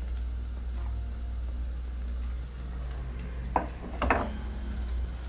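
Washed, drained rice sizzling as it goes into hot butter and olive oil in a pot, then stirred with a bamboo spatula, with a couple of sharp scrapes about three and a half to four seconds in. A steady low hum runs underneath.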